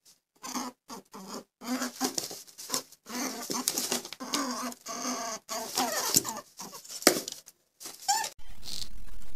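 A small animal squeaking in many short calls with brief gaps between them.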